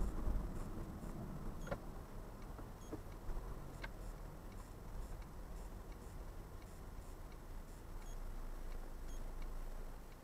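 Low engine and road rumble heard from inside a car, easing after the first second, with the turn indicator ticking steadily at roughly one and a half clicks a second.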